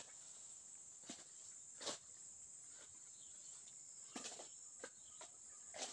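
A steady, high-pitched drone of forest insects, faint overall, broken by short rustles and snaps of leaves and twigs several times as someone moves through the undergrowth, with the clearest about two seconds in and a few more after four seconds.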